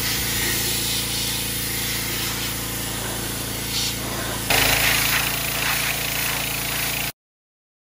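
Pressure washer running: its engine drones steadily under the hiss of the water jet. The spray gets louder about four and a half seconds in, then the sound cuts off abruptly.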